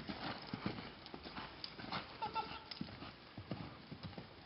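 Horse's hoofbeats at the canter on sand footing: a faint, uneven run of dull thuds.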